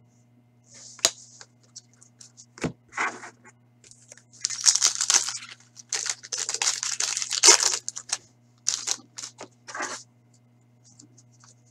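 A hockey card pack's wrapper being torn open and crinkled by hand, in a dense run of crackling rips from about four to eight seconds in. Short light taps and clicks of cards being handled come near the end.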